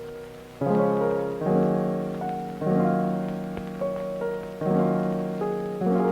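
Background music: piano chords struck about once a second, each fading away before the next.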